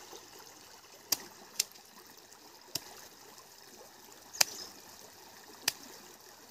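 A shallow stream trickling steadily, with about five sharp clicks spread through it as a machete cuts slices from a hard green elephant apple (chalta); the loudest click comes a little past the middle.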